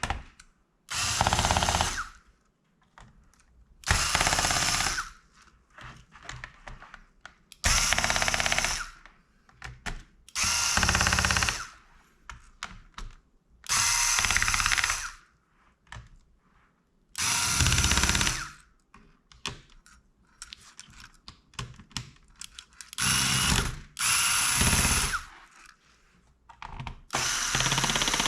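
A small electric screwdriver runs in short bursts of about a second each, around nine times, backing screws out of a laptop's case.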